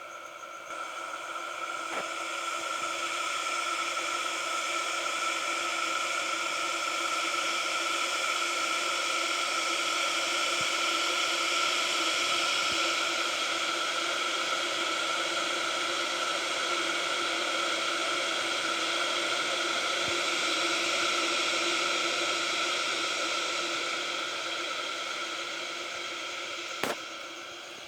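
Electric kettle heating water toward the boil: a steady rushing hiss that builds over the first few seconds and eases near the end. A single sharp click near the end is typical of its repaired bimetal thermostat switch cutting off.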